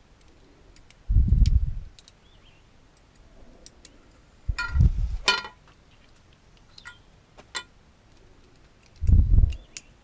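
Metal tool noises under a Husqvarna garden tractor's mower deck: a socket wrench clicking and knocking on the blade bolts. Three dull thumps, about a second in, in the middle and near the end, are the loudest sounds.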